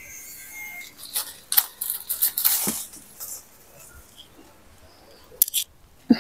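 Leaves rustling and fruit stems snapping as fruit is picked by hand from a leafy tree: a cluster of sharp snaps and rustles in the first half, then a couple of clicks near the end.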